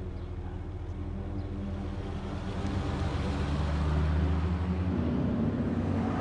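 Car engine running as the car approaches, growing steadily louder, with its hum shifting higher about five seconds in and a rushing tyre noise building toward the end.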